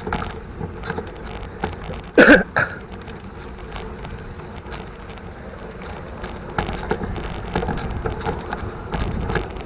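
A mountain bike being ridden, with a steady low wind rumble on the microphone and scattered small clicks and rattles from the bike. There is one short, loud noise about two seconds in.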